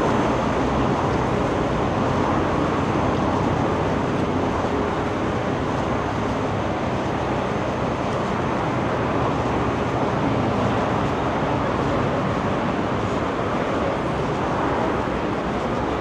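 Steady busy city street ambience: a dense, even wash of noise with no single sound standing out.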